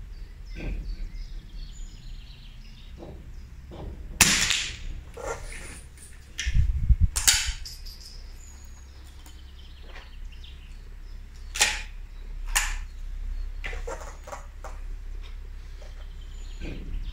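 A single moderated .22 LR rifle shot about four seconds in, a sharp crack with a short ringing tail; the Still3 sound moderator is fitted. Handling knocks and a few sharp clicks from working the rifle follow.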